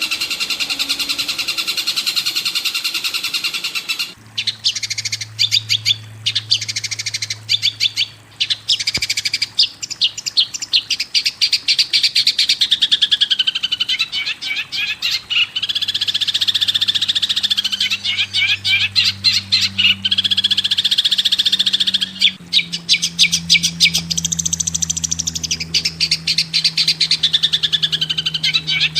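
Recorded songbird calls played as a bird-training (masteran) track: about four seconds in, the sound changes to fast, chattering runs of repeated high chirps, with a low steady drone underneath.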